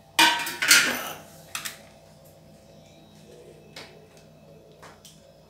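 Steel kitchen plates being moved and scraped on a stone counter, with a loud clatter in the first second, then a few light clicks of a spoon against a steel plate of masala paste.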